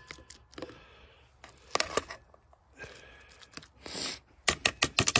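A metal spoon scraping cooked rice out of an aluminium pot and clinking on a metal camp plate, with scattered sharp clicks, then a quick run of taps near the end.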